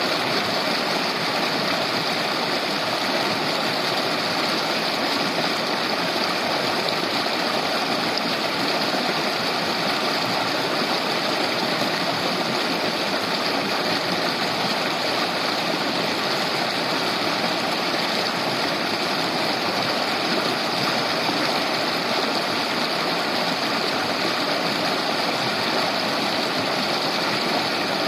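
Shallow river babbling steadily over stones, an even rushing and burbling of running water.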